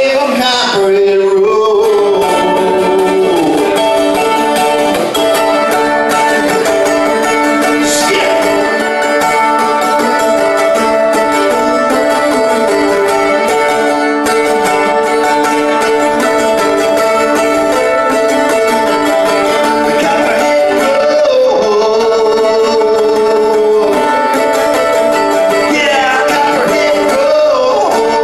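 Live music: a man singing into a microphone while playing a small plucked string instrument, the voice coming in near the start and again about twenty seconds in over steady sustained notes.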